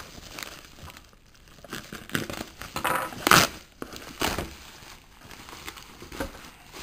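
Packaging crinkling and rustling in several short bursts as the booster boxes are handled, the loudest a little past three seconds in.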